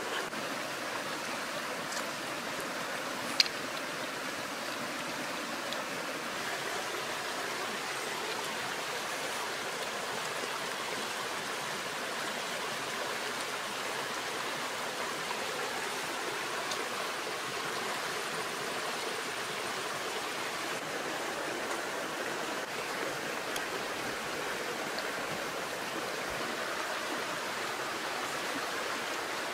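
Shallow rocky stream running over stones, a steady rushing of water. One sharp click about three and a half seconds in.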